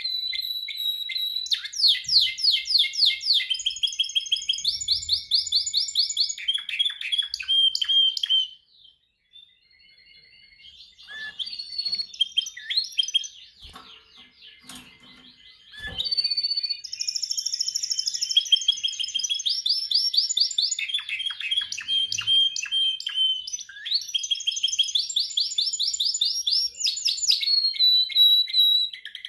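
Domestic canary singing: fast rolling trills and whistled notes. It falls silent about eight seconds in, twitters softly for a few seconds, then goes back to loud trilling.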